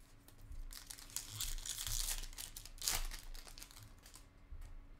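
A foil trading-card pack wrapper being torn open and crinkled: a burst of tearing and rustling from just under a second in to about three seconds, then quieter handling.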